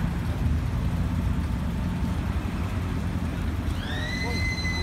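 Steady low rumble of an idling V8 engine, from a classic Shelby GT350 Mustang. Near the end a high whistle-like tone rises in pitch and then holds steady.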